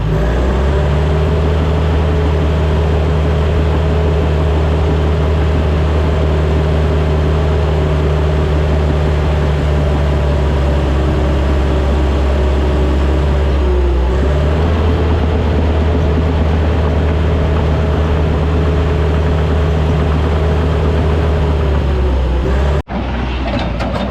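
Diesel engine of a piece of heavy earthmoving equipment running steadily at working throttle, with a brief dip in engine speed about fourteen seconds in. The sound cuts off abruptly near the end.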